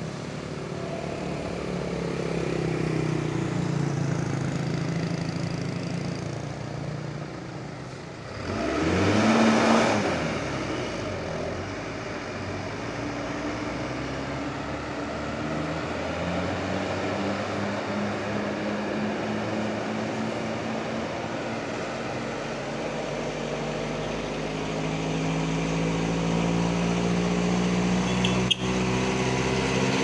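Large diesel bus engines running in slow stop-and-go traffic on a hill climb. About nine seconds in, a vehicle passes close by with a brief loud rush that fades. Near the end an engine revs up with rising pitch as a bus pulls away uphill.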